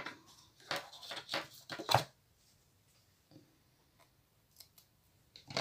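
Washi tape and small scissors being handled: a few rustling, scraping strokes in the first two seconds, the last the loudest, then faint clicks as the excess tape is trimmed off with the scissors.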